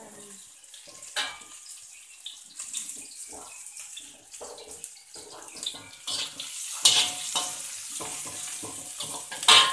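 Sliced shallots, ginger and green chillies sizzling in hot oil in a steel wok, with a metal spatula scraping and clanking against the wok as they are stirred. The sharpest clanks come about seven and nine and a half seconds in.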